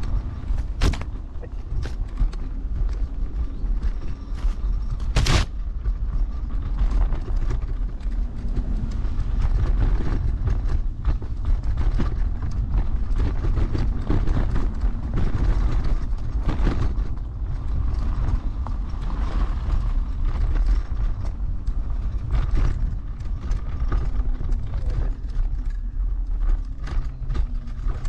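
Heavy electric scooter riding over a rough forest track: a steady low rumble on the microphone, broken by frequent knocks, rattles and creaks from the scooter over the bumps, with two sharp knocks about a second and five seconds in.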